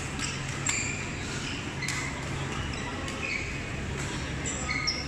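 Busy badminton hall: scattered sharp hits of rackets on shuttlecocks and short squeaks of court shoes from the surrounding courts, over a steady low hum.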